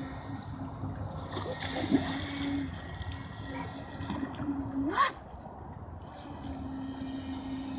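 Water splashing and sloshing as a dog plunges in and swims after a small RC jet boat. There are two sharp louder splashes, about two seconds in and about five seconds in, over a steady low hum.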